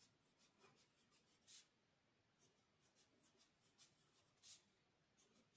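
Pencil making short dashes on drawing paper: a run of faint, quick scratches as hidden lines are dotted in, with a brief pause about two seconds in.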